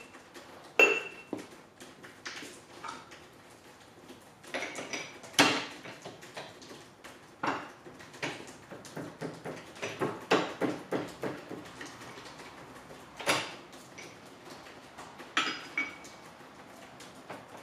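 Steel milling-machine tooling clinking and knocking as it is handled and set down on the machine, irregular metal-on-metal clatter with a short metallic ring near the start and again near the end; the loudest knock comes about five seconds in. The mill's motor is not running.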